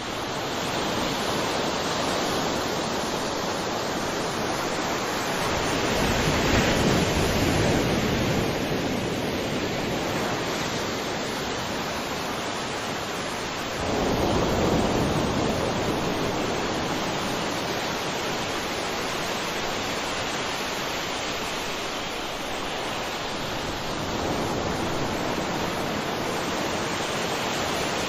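Sea waves breaking and washing on a shore: a steady surf hiss with swells rising and falling, the largest waves breaking about six seconds in and, more suddenly, about halfway through.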